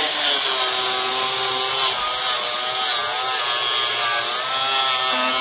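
Handheld angle grinder cutting along the edge of an aluminium composite sign panel. The motor's whine wavers in pitch as the disc bites and eases, over a steady hiss of cutting.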